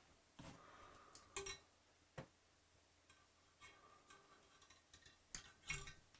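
Scattered sharp clicks and light clatter of small kit parts being handled and fitted together by hand, with a few louder knocks about a second and a half in and near the end.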